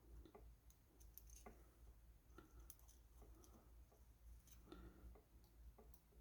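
Near silence with faint, scattered clicks from handling a resistor, bending its wire leads and fitting it into a circuit board.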